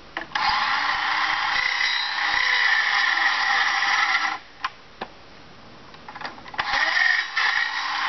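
Red cordless power tool running against a wooden frame: a loud motor-and-cutting noise for about four seconds, a stop with two sharp clicks, then it starts up again near the end.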